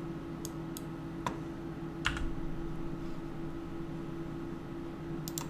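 A handful of scattered computer keyboard and mouse clicks, one about every second or so, as an object is scaled in Blender. A steady low electrical hum runs underneath.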